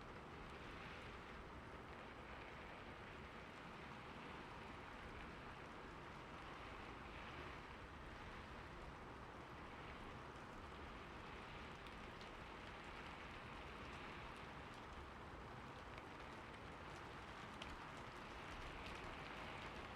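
Steady rainfall: an even, soft hiss of rain with a few faint single drop ticks.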